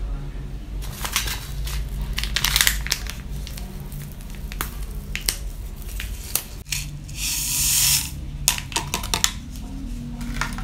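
Plastic wrapper of an instant coffee-mix stick crackling as it is handled and torn open. About seven seconds in the coffee powder pours into a glass mug with a short hiss, followed by a few light clicks.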